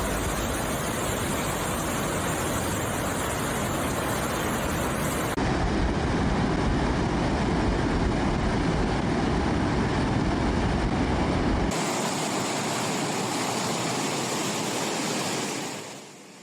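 Rushing floodwater: a steady roar of water in three stretches that change abruptly about five and a half and twelve seconds in, fading out near the end.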